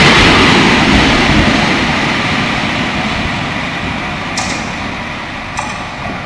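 EP07 electric locomotive running light past at close range and moving away, its running noise fading steadily, with two sharp clicks near the end.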